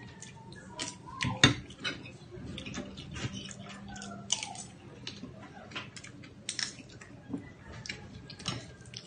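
Prawn shells being peeled by hand, with scattered small cracks and clicks, the sharpest about a second and a half in, mixed with mouth sounds of chewing.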